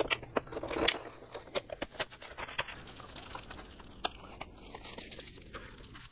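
Aluminium foil lid crinkling as it is pulled off a disposable foil pan, then a metal spoon stirring hot macaroni and cheese, with a run of light clicks and scrapes against the foil pan.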